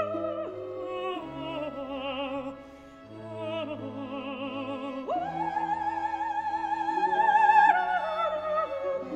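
Mezzo-soprano singing a slow Baroque opera aria with wide vibrato over sustained chords from a period-instrument string ensemble. About five seconds in the voice rises to a long, loud held high note, then steps down near the end.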